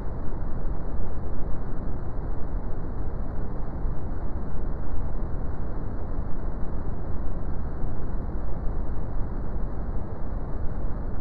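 Brown noise: a steady, deep rushing hiss weighted toward the low end, with no events or changes.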